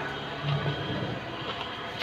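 Honda Civic engine idling unevenly with a misfire that four mechanics have failed to trace; a brief swell about half a second in.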